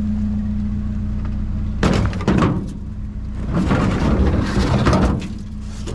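Junk clattering and scraping as it is shifted around in a dumpster: a short burst of clatter about two seconds in, then a longer, denser spell of it. Underneath, a truck engine idles with a steady hum.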